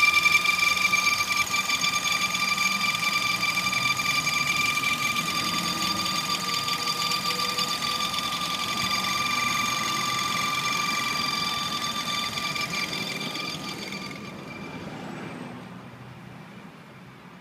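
VW Touran 1.2 TSI four-cylinder turbo petrol engine running, with a steady high-pitched whistle over the engine noise. The sound fades and goes duller over the last few seconds. The owner traced the whistle to a faulty high-pressure fuel pump, which was replaced under warranty.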